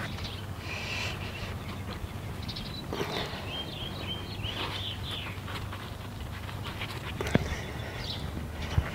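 Gloved hands rustling and pressing potting soil around seedlings in a planter, with a few short high chirps in the middle and two sharp clicks near the end.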